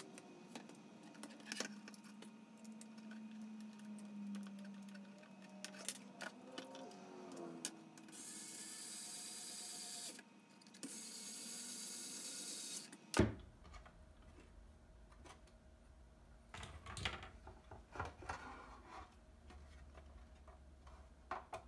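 Cordless electric screwdriver whirring in two runs of about two seconds each, driving M3 screws into a 3D-printed PLA panel frame. A sharp knock follows, then scattered clicks and taps of plastic parts being handled.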